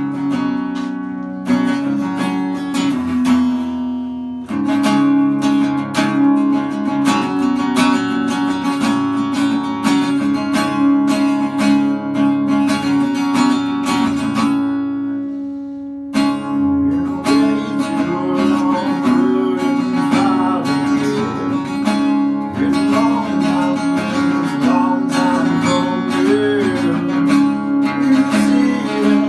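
Acoustic guitar music, strummed and plucked, that dies away about halfway through and then starts up again.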